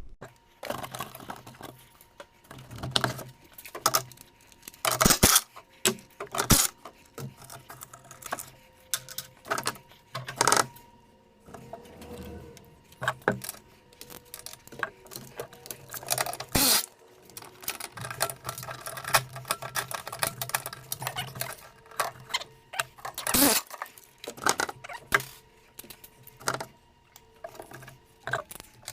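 Hand tools working on a truck engine: irregular metallic clicks, clinks and knocks as parts are unbolted and handled, over a faint steady hum.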